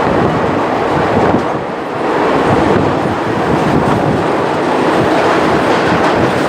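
Konkan Railway train running on the rails: a steady, loud rumble of wheels and carriages, easing slightly for a moment about two seconds in.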